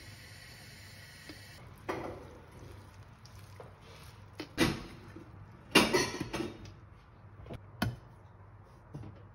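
Cookware clatter: a wooden spatula knocks and scrapes in a stainless steel pan of biryani rice, then the steel lid clanks onto the pan and a stone bowl is set on top as a weight for dum cooking. There are several separate sharp clatters, the loudest about two-thirds of the way through.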